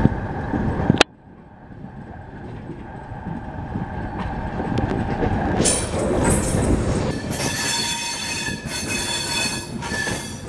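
Passenger train running on the rails, heard from an open coach door. After an abrupt cut about a second in it is quieter, and from about halfway the steel wheels squeal in several high, steady tones as the train takes curved track into the station.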